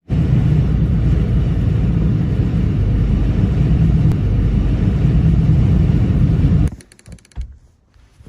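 Loud, steady low rumble of strong storm wind buffeting the microphone. It cuts off abruptly near the end, leaving a few soft knocks.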